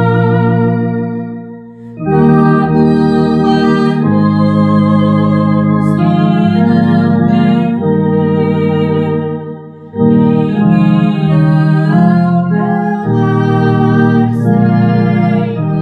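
Two-manual electronic organ playing a hymn in sustained chords, with a woman singing along. The music drops away briefly about two seconds in and again near ten seconds, then comes back in.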